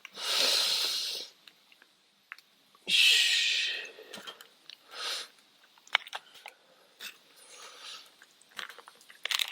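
Hot-pot broth being ladled from the pot into a bowl: two pours of about a second each, then light clinks and knocks of the ladle and utensils against the bowl.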